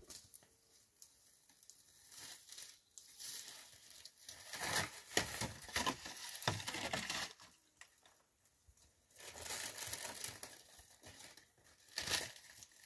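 Footsteps scrambling down a steep rocky slope: boots crunching on loose stones and gravel and brushing through dry grass, in irregular bursts, with a sharp knock about a second before the end.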